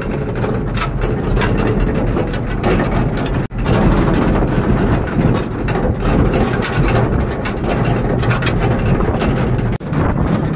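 Vehicle engine running under heavy road and wind noise, heard from on board while travelling over a rough dirt road. The sound breaks off for an instant twice, about a third of the way in and near the end.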